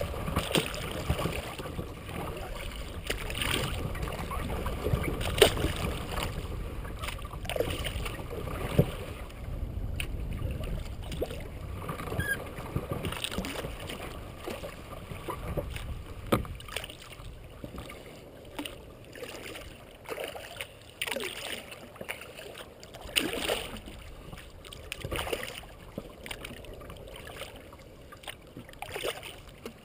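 Kayak paddle strokes dipping and splashing in calm water at an uneven pace, with a low rumble in the first half that fades out about halfway through.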